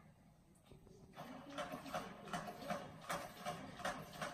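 Battery-powered pop-up feather cat toy running: its motor and gears clicking in an even rhythm, about three clicks a second, starting about a second in.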